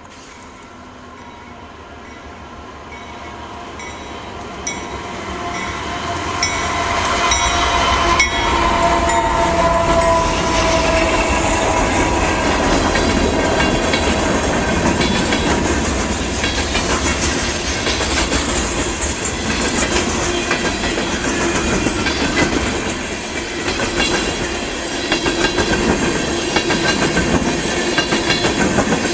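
A diesel-hauled freight train approaching and passing close by, growing louder over the first several seconds. A held horn chord sags slightly in pitch as the lead locomotives go by. Then the wheels click steadily over the rail joints as the cars roll past.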